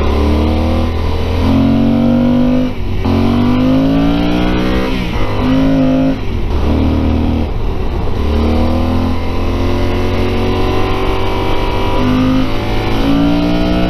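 Yamaha Super Ténéré's 1200 cc parallel-twin engine through its stock exhaust, pulling hard and shifting up through the gears several times, the pitch climbing in each gear and dropping at each shift.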